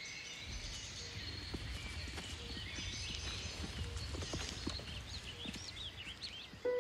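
European bison hooves thudding on grass as the animals move across a clearing, a series of dull footfalls over a low rumble.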